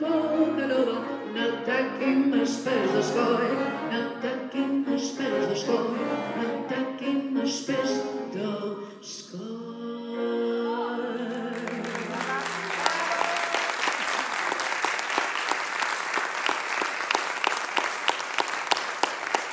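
A woman sings with piano, two violins, viola and cello, and the song closes on a long held final note. About two-thirds of the way through, audience applause takes over and continues steadily.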